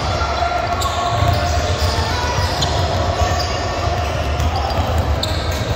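Sounds of an indoor basketball game: a ball bouncing on the court with short squeaks over a steady low rumble and indistinct voices, all echoing in a large hall.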